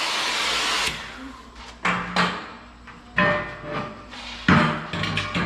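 A cutting torch hisses and cuts off about a second in. Then come several sharp, ringing metal clanks of steel being knocked or handled, the loudest near the end.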